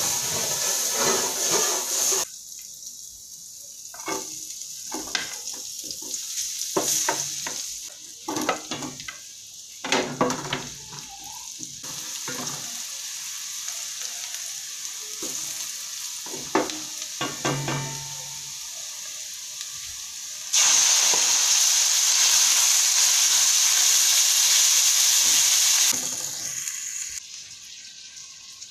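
Butter, garlic and onion sizzling in a hot stainless steel pan, with a wooden spatula stirring and knocking against the pan many times. About twenty seconds in, a much louder sizzle starts as sliced pork goes into the pan, holds for about five seconds, then dies down.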